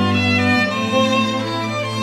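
Background music played on bowed strings: a violin melody over a held low note.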